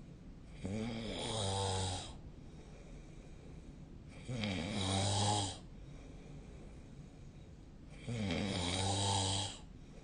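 A sleeping person snoring: three snores evenly spaced about four seconds apart, each lasting about a second and a half, with quiet breathing between them.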